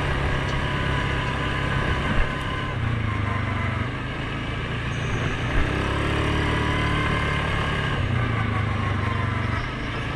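Suzuki KingQuad 750 ATV's single-cylinder engine running under way on a dirt trail, the revs rising and falling. Two brief knocks come about two seconds in and again past the middle.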